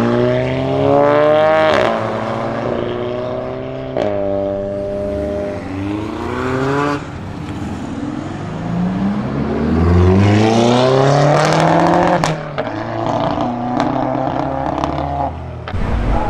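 Volkswagen Golf R's turbocharged four-cylinder accelerating hard through the gears, its pitch climbing and breaking at an upshift about four seconds in. Then a second car's engine climbs in pitch under hard acceleration, with several exhaust cracks about halfway through.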